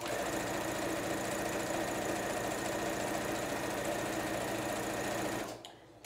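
Brother electric sewing machine running fast and steady as it stitches a hem into cotton sheet fabric, stopping about five and a half seconds in.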